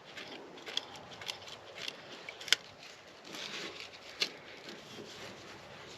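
Faint, scattered small metal clicks and scrapes of a socket on an extension being turned by hand, spinning out the loosened oil sensor switch, with two sharper clicks about two and a half and four seconds in.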